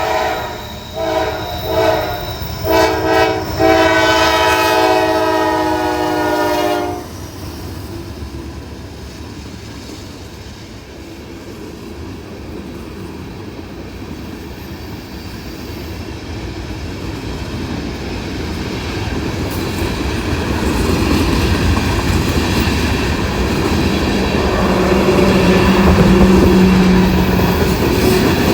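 Norfolk Southern locomotive 4347's air horn, sounding several pitches at once, gives a few short blasts and then a long one that cuts off about seven seconds in. The rumble of the passing train follows, growing louder toward the end.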